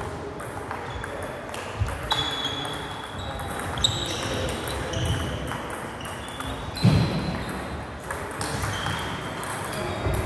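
Table tennis rally: the plastic ball clicking off the rubber bats and pinging on the table top, a stroke every second or so. About seven seconds in there is a heavier thud.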